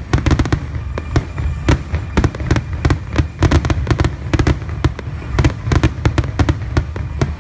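Fireworks display: aerial shells bursting in rapid succession, several sharp bangs a second over a continuous low rumble.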